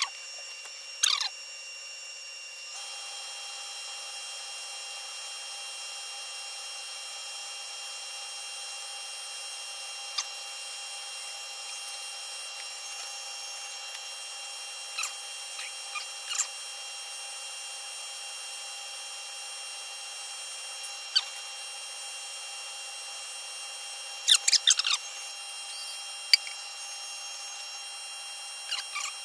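A micrometer clicks a few times as it is handled and closed on a lapped steel roll, with a quick run of clicks about three-quarters of the way through. Under the clicks runs a steady machine whine of several fixed tones.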